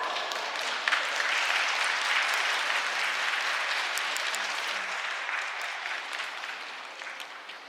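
Sumo arena crowd clapping and cheering, swelling about a second in and fading toward the end.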